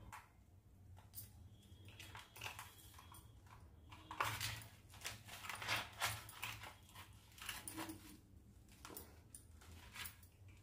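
Brittle puffed-rice and sesame chikki being broken and crumbled by hand on a steel plate: a quick run of crackles and crunches, busiest in the middle.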